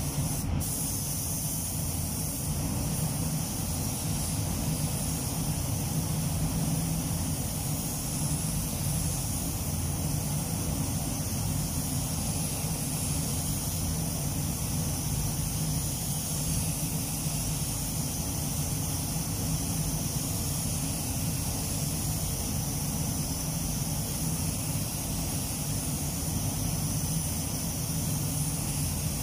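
Compressed-air spray gun hissing steadily as it lays clear coat on a car panel, over a steady low hum. A brief click just after the start.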